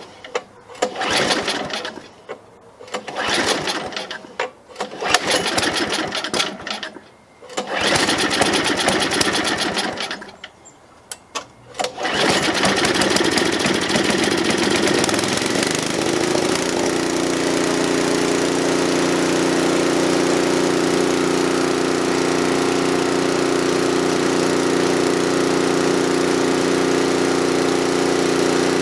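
John Deere TRS24 snowblower engine being pull-started cold on full choke: several pulls on the recoil starter cord, each turning the engine over briefly, until it catches about twelve seconds in. It then runs steadily, settling to an even tone a few seconds later.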